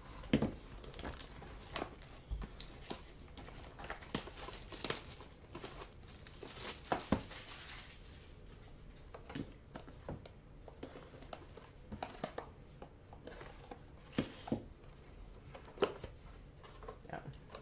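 Plastic packaging crinkling and tearing as a trading-card box is unwrapped, with scattered light clicks and scrapes from the box being handled on a desk. A longer rustle comes about seven seconds in.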